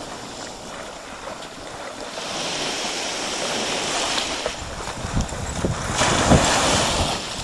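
Small waves washing onto the beach, with a dog splashing through the shallows and wind rumbling on the microphone. The sound swells about two seconds in, and the loudest surge comes about six seconds in as a wave breaks at the water's edge.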